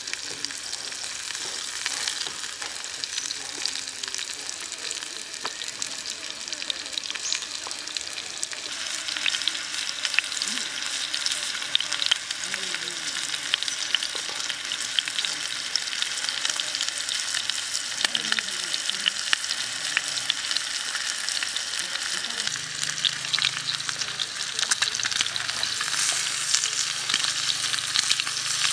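Pork rib pieces sizzling in a small square frying pan: a steady hiss with scattered crackles and pops. The sizzle grows louder about a third of the way in and again near the end.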